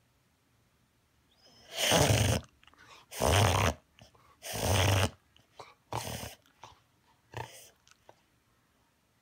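A cocker spaniel in a reverse-sneeze-like fit of harsh, noisy breathing through the nose: three long, loud spasms about a second apart, then several shorter, weaker ones fading away. The cause is a piece of kibble stuck up one nostril.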